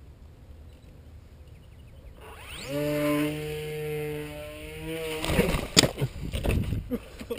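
Electric motor and propeller of a small foam RC plane spooling up about two seconds in with a quickly rising whine, then running at a steady pitch. From about five seconds in, loud rustling and knocks of handling close to the microphone.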